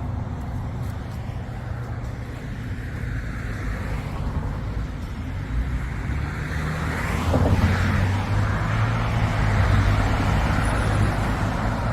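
Road traffic rumbling, with a vehicle passing close and growing louder about seven seconds in.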